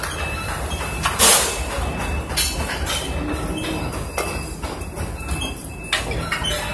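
Building-site machinery rumble, steady and low, with several short bursts of clatter or hiss spread through it.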